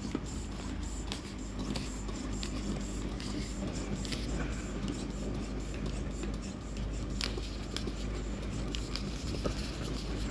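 Hands handling a long latex modelling balloon just inflated with a hand pump: rubbing and scattered small clicks over a faint steady hum.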